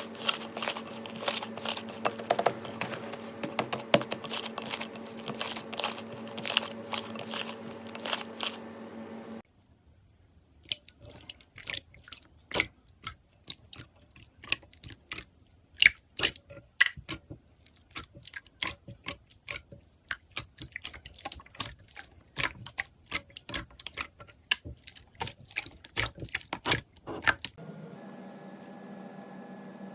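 Slime being squeezed and pressed by hand, making a rapid, irregular run of sticky clicks and crackles. The clicks sit over a steady hum at first. About nine and a half seconds in, the hum drops away and the clicks go on over a quiet background. Near the end the clicking stops and only a steady hum remains.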